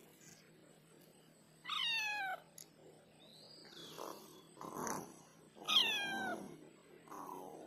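Tabby cat meowing twice, a few seconds apart; each meow starts high and falls in pitch, with quieter sounds from the cat between them.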